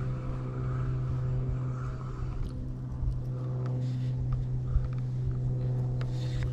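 An engine idling with a steady low hum. Light clicks and knocks come in from about the middle.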